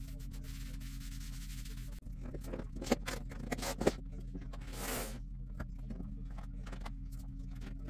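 A cloth dampened with all-purpose cleaner wiping across a tabletop in rubbing strokes, with a few light knocks and one longer swish about five seconds in.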